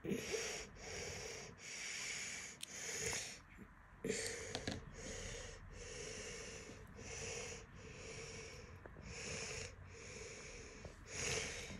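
A person breathing noisily through the nose close to the microphone: a steady run of quick breaths, about one a second.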